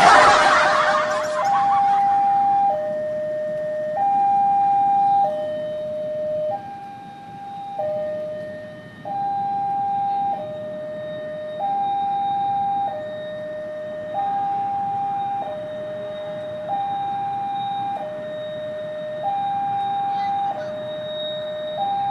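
Railway level-crossing warning alarm sounding, an electronic two-tone signal that switches between a higher and a lower tone about every second and a quarter, warning of an approaching train. A loud rushing noise covers the first second and a half.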